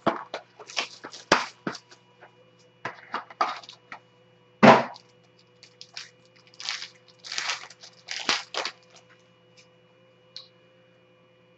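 Trading-card box and its plastic-wrapped pack being torn open: short crinkling and crackling rips of the wrapper, with one sharp snap a little under halfway through.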